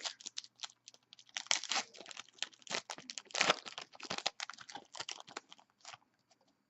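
Foil wrapper of a trading-card pack being torn open and crinkled: a dense run of short crinkling rustles that stops about six seconds in.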